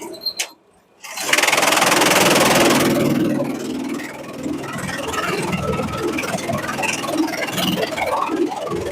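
Shredder machine running: a loud rush of noise begins just after a brief break, then it settles into a steady engine hum with scattered crackling.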